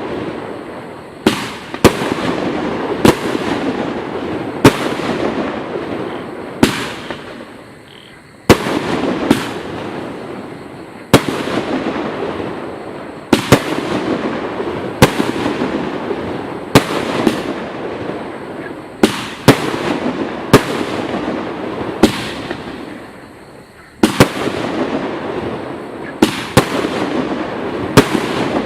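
Total FX Caged Jaguar firework cake firing: sharp bangs at uneven intervals of about a second or two, each followed by a fading rush of noise. The sound dies down briefly twice before the next bangs.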